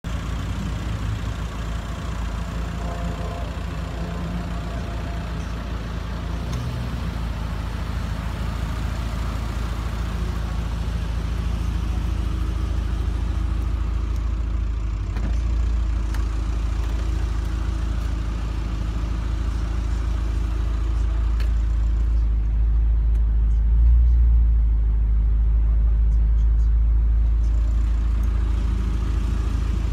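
2010 Ford Mustang GT's 4.6-litre V8 idling steadily through an aftermarket MagnaFlow exhaust, a low, even exhaust note that grows a little louder in the second half.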